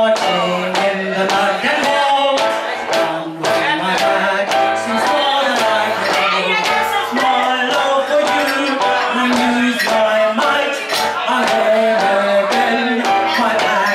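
A woman singing a cabaret song into a microphone over instrumental accompaniment with a steady beat.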